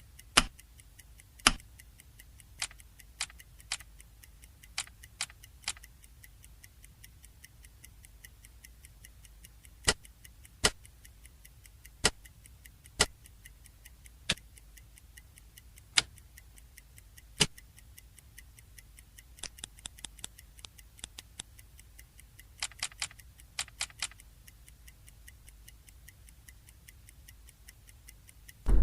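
Sharp, irregular clicks and ticks, some single and some in quick runs of several, over a faint low hum.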